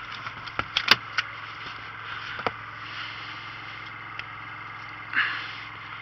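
An engine running steadily, with a few sharp knocks and clicks in the first couple of seconds and a short rushing noise about five seconds in.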